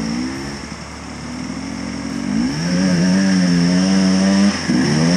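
Enduro dirt bike engines revving as the bikes ride through a muddy water crossing, splashing through the water. The engine note climbs about halfway through, holds, dips briefly near the end and then climbs again.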